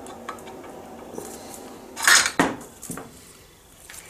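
A metal wheel being worked off its stub axle: light metal clicks and scraping, then a loud metal clank about two seconds in, followed by a second hit and a few smaller clinks.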